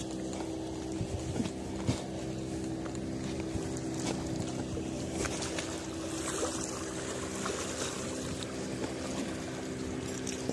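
A boat engine running steadily, giving a constant low drone, with scattered faint clicks over it.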